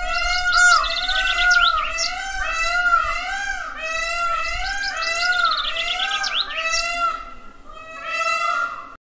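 Peafowl calling: a rapid, overlapping series of loud rising-and-falling calls repeated several times a second, with high chirping mixed in.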